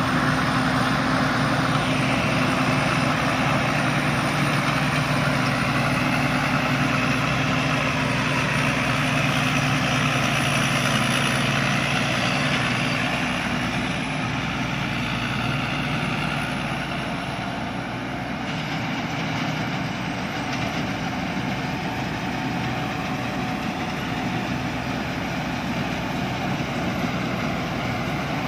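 Sakpattana rice combine harvester running steadily at work, its diesel engine and threshing machinery making a continuous hum and clatter that eases slightly about halfway through.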